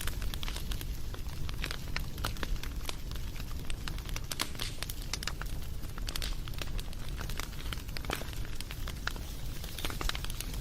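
Wood fire crackling: frequent irregular sharp pops and snaps over a steady low rumble of burning.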